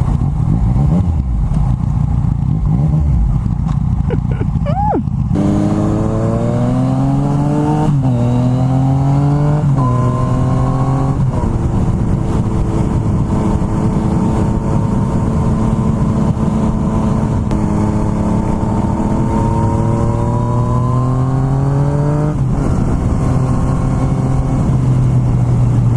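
Yamaha MT-09's 847cc three-cylinder engine through an Akrapovic carbon full exhaust, pulling hard under acceleration. The engine note climbs and drops back at three quick upshifts, holds steady, then climbs again to one more shift near the end, over a rough rush of wind noise.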